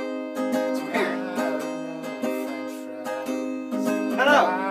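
Acoustic guitar strummed in steady chords while a man sings along. His voice comes in about a second in and again near the end.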